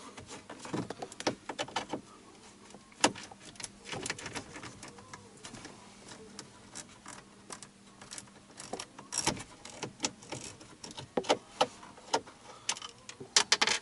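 Irregular clicks and light knocks of a hand tool backing out the two 7 mm bolts at the bottom of a truck's dash bezel, with a cluster of quick clicks near the end.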